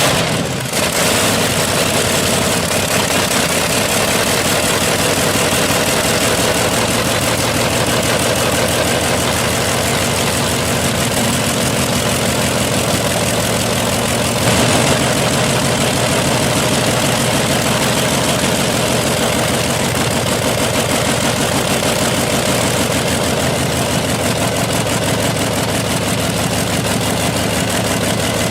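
Old engine running steadily at idle, with even firing pulses and a brief louder pop about halfway through.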